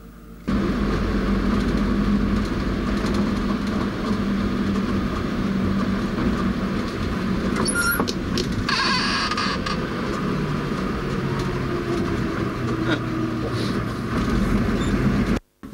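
Safari vehicle's engine and road noise heard from inside the cabin while driving, a steady low hum with a brief hiss about nine seconds in. It starts abruptly about half a second in and cuts off suddenly near the end.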